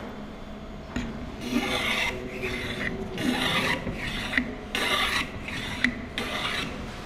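Metal bench plane being pushed along the edge of a wooden board, each stroke cutting a thin shaving off the chamfer with a short rasping hiss. There are about five strokes, roughly one a second, starting about a second and a half in.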